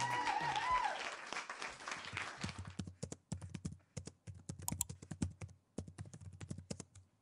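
Background song with singing that ends about a second in. After that comes a run of quick, irregular clicks and taps close to the microphone.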